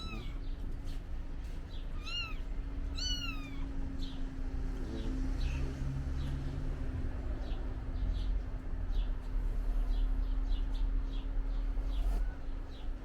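Young kittens mewing: two high-pitched mews that rise and fall, about two and three seconds in, with fainter short squeaks scattered through.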